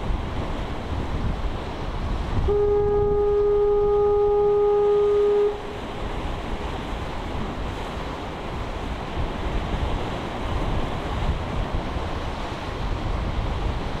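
Foghorn sounding one steady blast of about three seconds, a single held tone that starts a couple of seconds in and cuts off sharply. Surf washes against the jetty rocks throughout.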